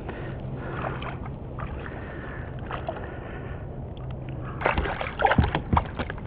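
Water sloshing against a kayak, then a quick run of sharp splashes in the last couple of seconds as a hooked speckled trout thrashes at the surface. A steady low hum runs underneath for the first few seconds.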